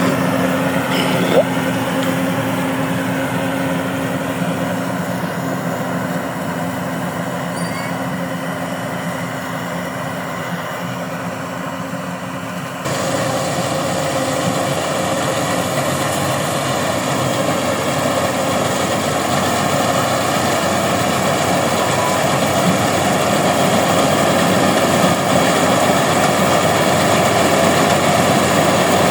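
Engine of a rice combine harvester running steadily, with a sudden change to a louder, noisier machine sound about thirteen seconds in.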